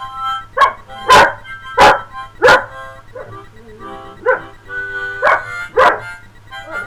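A harmonica plays held chords while a pet dog barks along in a string of about seven short, sharp barks, the loudest in the first half.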